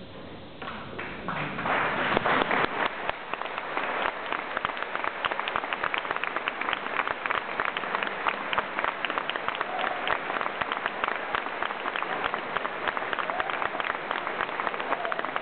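Audience applause breaking out at the end of a performance, starting about a second in and quickly building into steady, dense clapping.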